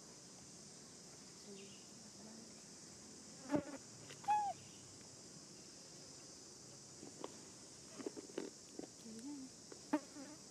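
Steady high-pitched insect drone, with a sharp click about three and a half seconds in, a short rising-and-falling call just after it, and scattered soft clicks in the second half.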